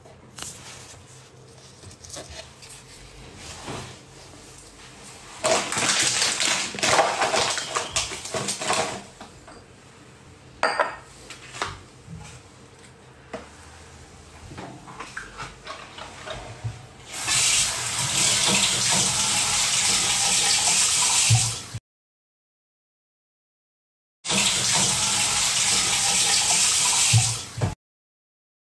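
Clattering and handling sounds, then water running from a tap in a loud steady hiss that twice cuts off abruptly to dead silence.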